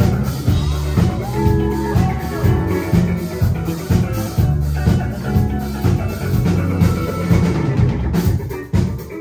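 Live band music: a drum kit keeps a steady dance beat under bass notes and melodic lines.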